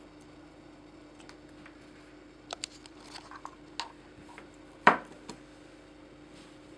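Light taps and scuffs from a cat playing with a wand toy on a fleece blanket, with one sharp, much louder click about five seconds in, over a faint steady hum.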